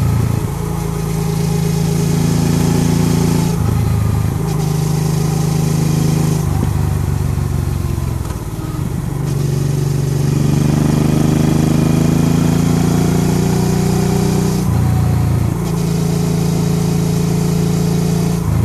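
Motorcycle engine running at speed, heard onboard with wind rush on the microphone. Its note breaks and shifts in pitch every few seconds as the throttle and gears change.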